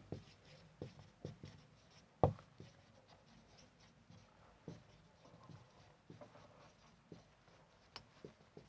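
Marker pen writing on a whiteboard: faint, scattered taps and short strokes, with one louder tap a little over two seconds in.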